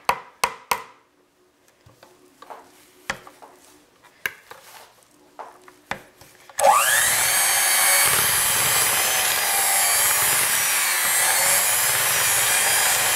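Electric hand mixer beating crumbly cookie dough: after a few knocks and scrapes of a spatula against the bowl, the mixer starts about halfway through with a quick rising spin-up and runs loud and steady, its beaters churning through the dough as it forms.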